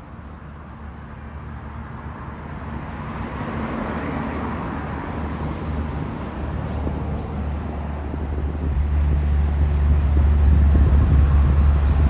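Road traffic noise with a low rumble that grows louder through the second half.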